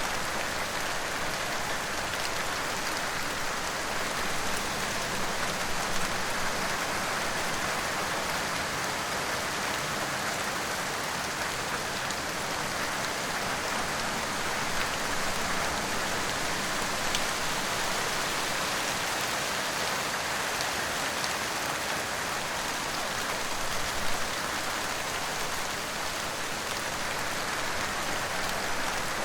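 Steady rain falling, an even hiss with scattered raindrop ticks, and one sharper drop or splash a few seconds before the end.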